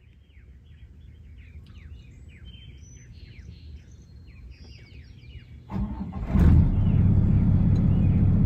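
Small birds chirping in quick downward notes over a faint low rumble. About six seconds in, the trawler's diesel main engine starts with a sudden loud burst and then runs at a steady, even idle.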